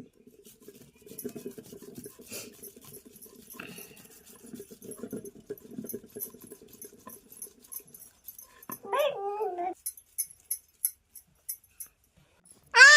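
An animal's pitched, wavering calls: one about nine seconds in and a louder, shorter one at the end. Before them there is a low buzzing hum with faint crackles.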